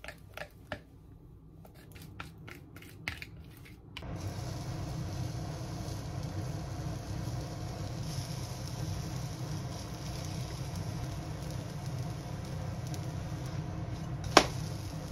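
A whisk tapping and scraping a bowl as pancake batter is mixed, a string of light clicks. About four seconds in, a steady low hum with a soft hiss takes over as the batter cooks in a frying pan on the stove, with one sharp click near the end.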